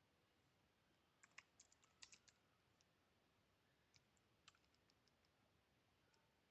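Faint computer keyboard typing and mouse clicks: a quick run of keystrokes about a second in, and a few more scattered clicks around four to five seconds in, against near silence.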